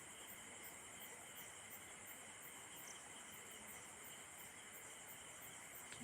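Faint insects chirping steadily, about three high pulses a second, over low background hiss. A small click comes right at the end.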